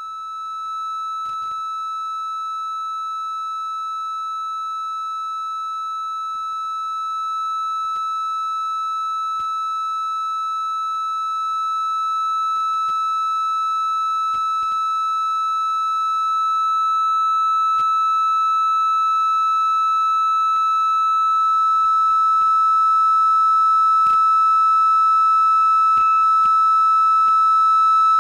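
A steady electronic test tone at about 1.3 kHz, from a CMOS 4069 inverter wired as an audio amplifier and fed a triangle wave. It grows louder in steps as the input potentiometer is turned up, and its overtones strengthen as the amplifier is driven harder. Faint clicks sound now and then.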